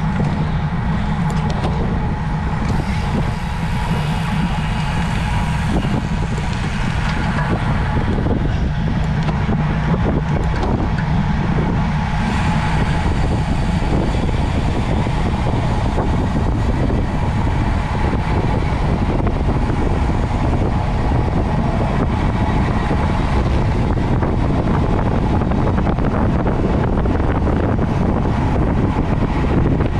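Steady rushing noise of a road bicycle on the move: wind and road noise, heaviest in the low range, with no breaks.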